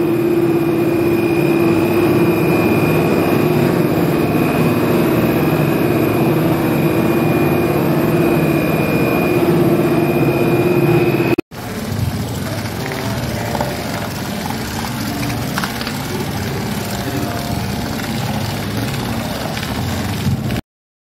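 Cable car station machinery running: a dense steady rumble carrying a constant hum and a high whine. About halfway through it cuts off abruptly and is replaced by a rougher steady noise without the whine.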